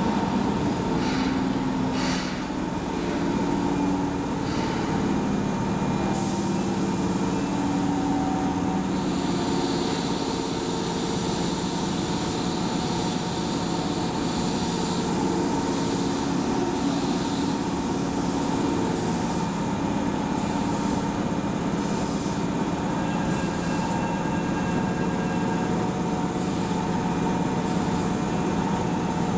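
Keihan 6000-series electric commuter train pulling into a station and stopping, then standing at the platform with a steady hum from its equipment. A hiss of air starts about six seconds in.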